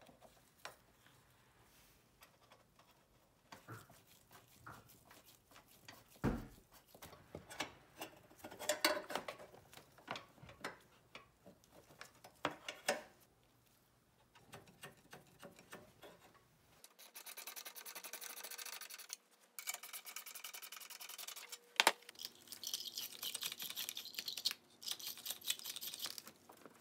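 Clicks and knocks of a car battery being seated in its tray and its J-hook hold-downs being refitted. About two-thirds of the way in, this gives way to a brush scrubbing the battery cable terminal connectors: steady, hissy rubbing in quick strokes, with short pauses.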